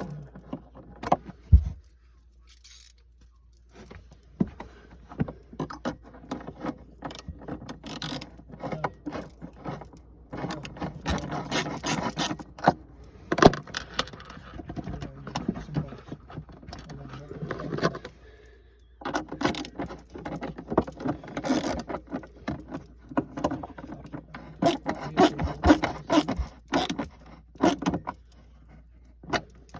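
Irregular clicking, rattling and scraping from hands working on a diesel heater's ducting and plastic Y piece as they are pushed back into place, in bursts with short quiet gaps.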